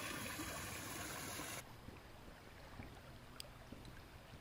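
Steady rush of flowing creek water that cuts off abruptly about a second and a half in. What remains is a faint, quiet outdoor background with a few soft ticks.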